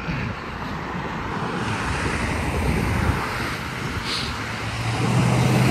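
Road traffic passing close by, a rushing tyre-and-engine noise that swells in the middle, with wind buffeting the microphone. Near the end a low steady engine hum from a nearby vehicle comes in.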